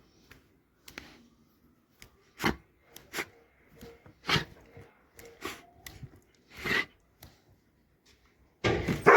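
Scattered rubbing and scraping noises, three of them louder, then a sudden loud sound starting just before the end.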